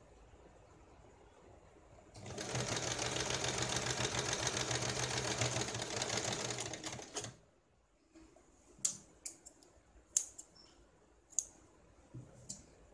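Electric sewing machine stitching at a fast, even rate for about five seconds, starting about two seconds in and then running down and stopping, as small pleats are stitched down in folded fabric. Afterwards a few short sharp clicks as the fabric is handled at the machine.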